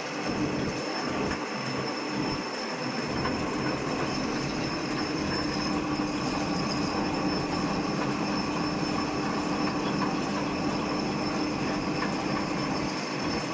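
A machine cutting aluminium, running steadily with a high whine over a lower hum and a noisy hiss.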